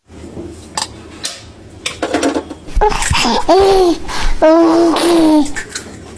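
Wordless vocal sounds from a cartoon character: a few soft clicks and a short breathy burst, then two drawn-out voiced sounds whose pitch rises and falls, in the second half.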